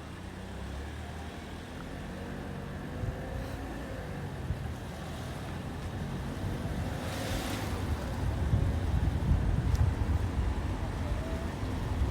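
Road and wind noise from a moving vehicle: a steady low rumble with wind on the microphone, a brief hiss about seven seconds in, and the rumble growing louder near the end.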